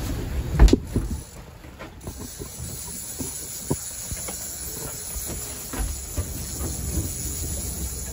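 Wind buffeting the microphone with a loud knock about half a second in, then a steady hiss with scattered faint clicks and taps.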